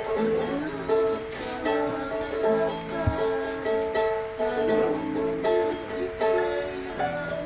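Ukulele and acoustic guitar playing a tune together, with chords changing every half second or so.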